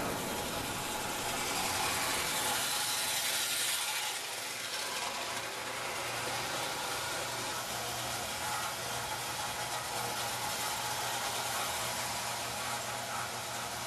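Lithographed tin O gauge toy trains running on tinplate track: a steady rattling run with a faint low hum underneath.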